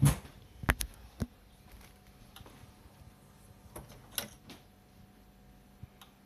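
A few sharp clicks and knocks from handling an opened CD player's Philips CDM4 disc mechanism: several near the start, a cluster about four seconds in and one near the end.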